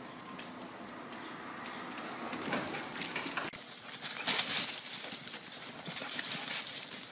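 A puppy's paws scrabbling and clicking on a hardwood floor as it runs around a chair, then, after a cut about halfway through, a dog's feet scuffing and rustling through dry leaf litter as it runs around a tree.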